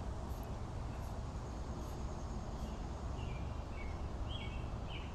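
Steady background hiss and low hum, with a few short bird chirps in the second half.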